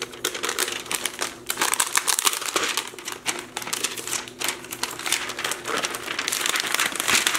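Clear plastic protective wrap crinkling and rustling in many quick crackles as it is handled and pulled off a new laptop.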